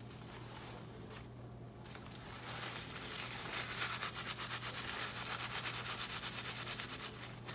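Paper towel rubbed briskly over hands, a fast run of dry, scratchy wiping strokes starting about two seconds in.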